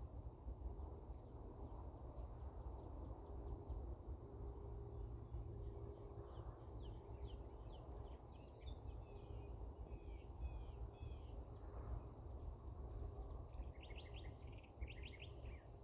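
Faint evening field ambience: a steady low background rumble with songbirds chirping in quick down-slurred notes from about six seconds in and again near the end. A high, regular ticking about three times a second runs through the first few seconds.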